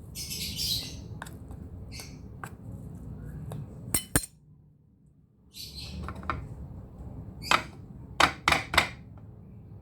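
Kitchen utensils clinking against dishes: two sharp clinks near the middle and a quick run of three or four near the end, with brief scraping sounds between them over a low steady hum.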